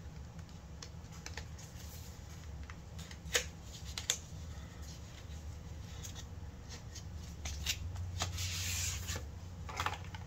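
An eyeshadow palette and its packaging being handled and opened: scattered light clicks and taps, two sharper clicks about three and four seconds in, and a rustling rub of packaging about eight seconds in.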